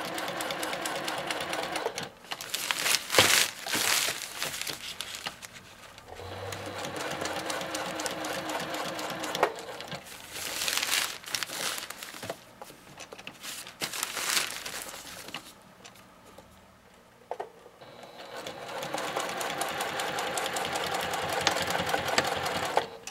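JUKI sewing machine stitching a box stitch through grosgrain webbing and silpoly tarp fabric. It runs in several short runs, stopping and starting as the stitch turns corners. Between runs the slick tarp fabric rustles as it is turned.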